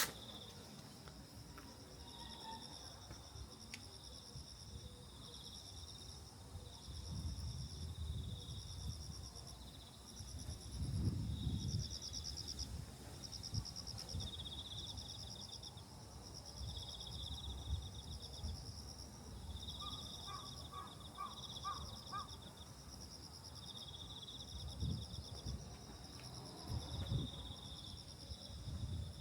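Insects chirping in a steady series of high, pulsed trills, each about a second long. Irregular gusts of wind rumble on the microphone, strongest around a third of the way in and again near the end. A short run of quicker, lower pulses comes about two-thirds of the way through.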